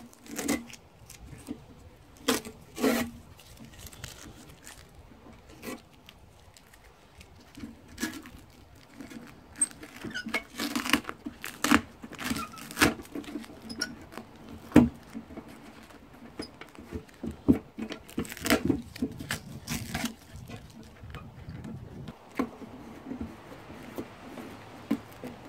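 Masking tape being handled on a small metal toolbox: strips pulled, torn and pressed down, with scattered light knocks and rustles from the hands on the box.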